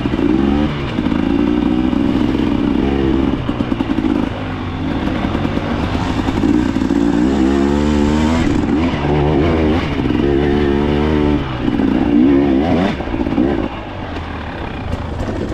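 Dirt bike engine revving up and down over and over under changing throttle, with some clatter; the revs drop back to a lower, quieter run near the end.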